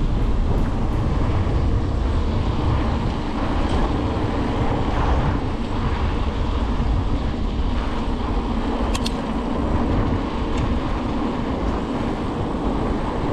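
Wind rushing over a GoPro microphone while riding a Carrera Hellcat mountain bike, with its tyres rolling over a rough track, and a few faint clicks about nine seconds in.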